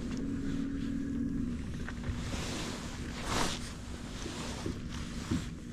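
Wind noise on the microphone over a low rumble, with a steady low hum that fades out in the first second and a half. About halfway through comes a short swish as a light spinning rod is cast, followed by a few faint clicks.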